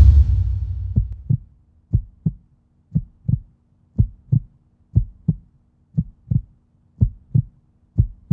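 A deep boom that fades over about the first second, then a heartbeat: paired low thumps, lub-dub, about once a second.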